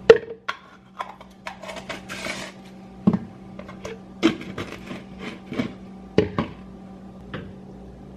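A kitchen utensil clinking and knocking against glass jars and a glass measuring cup while minced garlic is scooped into the sauce, with a brief scrape about two seconds in. The sharpest knock comes right at the start.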